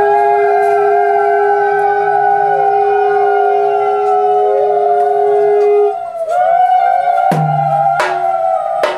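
A conch shell blown in one long steady note that stops about six seconds in, under several higher wavering, gliding tones. A few sharp strikes come near the end.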